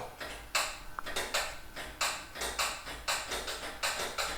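Electromagnetic table of an Okamoto PSG 63 surface grinder going through its demagnetizing cycle after being switched off: a steady train of sharp clicks, about two to three a second, as the field is pulsed through the table to demagnetize the workpiece.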